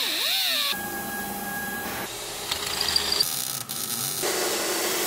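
Quick cuts between metal-fabrication tool sounds: a small right-angle disc grinder whining against steel with a wavering pitch, then other power-tool sounds of about a second each, ending with a steady hiss of welding.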